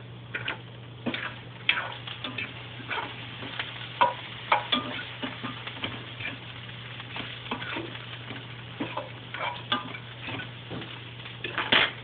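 Irregular clinks and knocks of kitchen utensils against dishes or pans, over a steady low hum.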